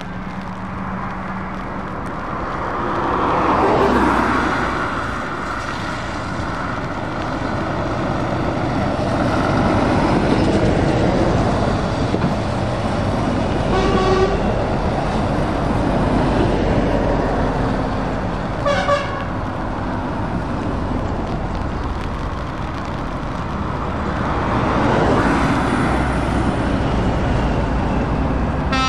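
Convoy of lorries driving past one after another, each passing as a swell of engine noise and tyre hiss on the wet road. A truck horn sounds briefly about halfway through, and again about five seconds later.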